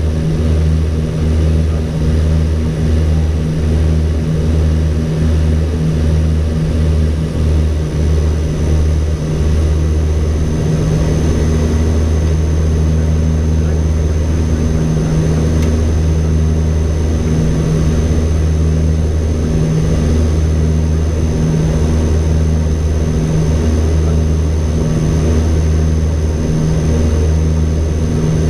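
An ATR 42-320's twin Pratt & Whitney PW121 turboprops heard from inside the cockpit: a steady low propeller drone with a throbbing beat, quick for the first ten seconds or so, then slower.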